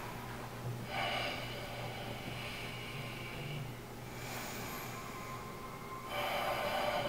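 A man breathing heavily through his nose: two long, hissy breaths, the second starting about six seconds in. A steady low hum runs underneath.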